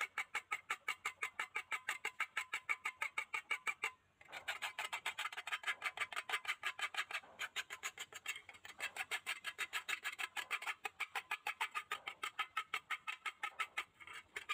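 A small hand brush scrubbing rust off the inside of a rusty metal stove pan in fast back-and-forth strokes, about five a second, with a short break about four seconds in and another near the end.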